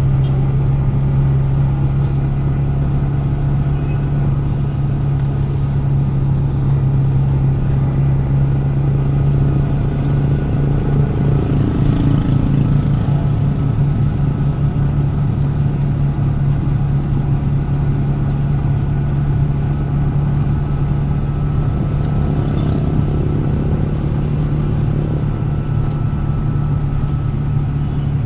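Motor vehicle engine running at a steady, unchanging pitch during a ride, over a steady haze of road noise.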